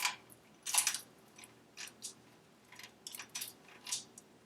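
Light metallic clicks and rattles of engine parts being handled as the cylinder base gasket is fitted over the timing chain and piston, with a sharper click a little under a second in.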